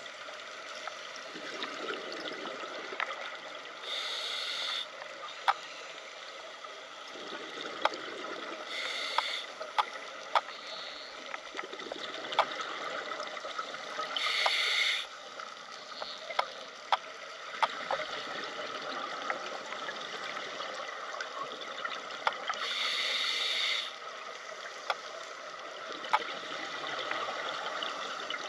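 Underwater sound of scuba breathing: four bursts of exhaled bubbles from a diver's regulator, a few seconds apart, over a steady underwater hiss with scattered sharp clicks.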